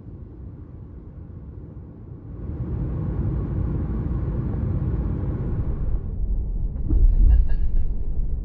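Car driving at speed on an expressway: steady low road and tyre rumble that grows louder about two seconds in, with a louder low bump and a brief rattle around seven seconds.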